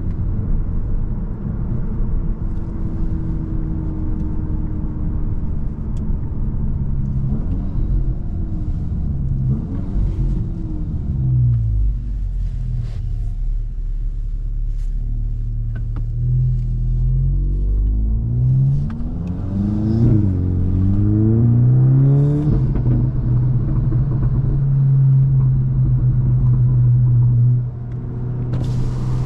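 Tuned VW Mk8 GTI's 2.0-litre turbocharged four-cylinder running through an aftermarket catback exhaust while driving. The revs climb and drop with gear changes through the middle, then the engine holds a steady cruise near the end.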